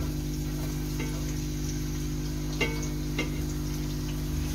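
Chicken frying in a covered wok, a faint sizzle over a steady low hum, with a few short clicks about a second in and again after two and a half and three seconds.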